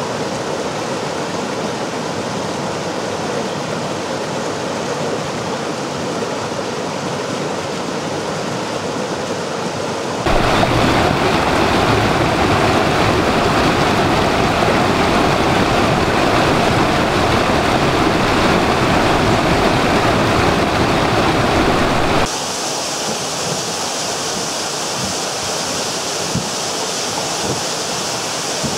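Mountain stream rushing and splashing over rocks, heard first through the Panasonic HC-V700 camcorder's built-in microphone. About ten seconds in it switches to the BOYA BY-PVM1000L shotgun microphone, and the stream sounds louder and fuller. About two-thirds through it changes to a thin waterfall splashing down beside a wooden wall, back on the camcorder mic, with a brighter hiss.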